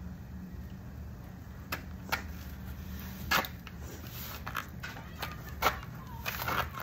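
About eight light knocks and clicks at irregular intervals, the loudest two about a third and four-fifths of the way through, over a steady low hum.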